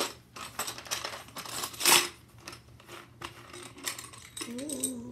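Plastic buttons rattling and clicking against a clear plastic jar as its lid is twisted off and the buttons are handled, with one loud clatter about two seconds in. A short hummed voice near the end.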